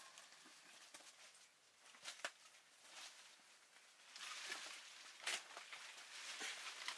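Faint footsteps and rustling of a hiker moving along a trail, with a couple of sharper steps about two and five seconds in, the rustling getting louder in the second half.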